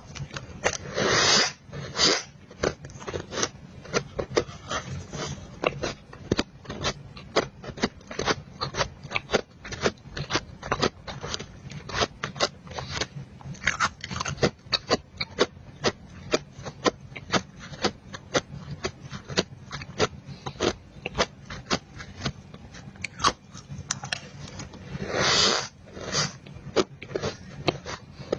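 Close-miked crunching of powdery freezer-frost ice being bitten and chewed, a fast run of crisp crackles. Longer scratchy bursts come about a second in and again near the end.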